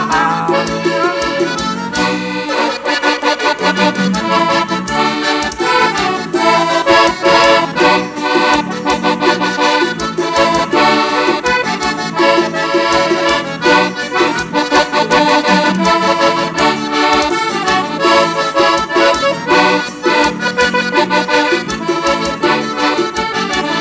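Two accordions playing a fast instrumental tune together: quick runs of short notes over a steady beat.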